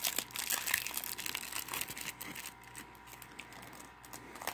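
A paper insert and a plastic DVD case being handled: crinkling and rustling with small clicks, busiest in the first couple of seconds, then fainter.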